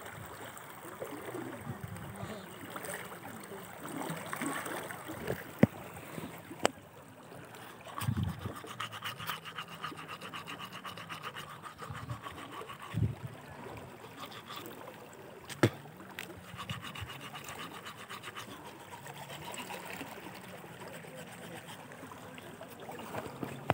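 A river running high and muddy after heavy rain: a steady wash of flowing floodwater, with a few sharp clicks along the way.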